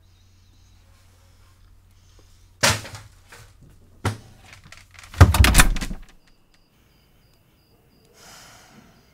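Refrigerator humming steadily with its door open, two short sharp knocks, then the fridge door shut with a heavy thud about five seconds in, after which the hum stops.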